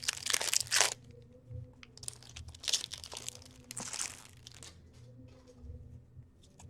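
A trading card pack wrapper being torn open and crinkled by hand, in three rustling bursts, with small clicks of cards being handled between them.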